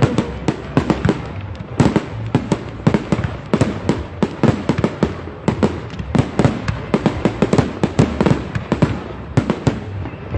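Fireworks display: a dense, continuous run of bangs and crackles, several sharp reports every second.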